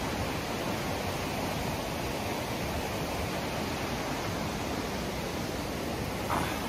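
Steady rush of a fast-flowing river running high. A brief whistle-like sound rises and falls near the end.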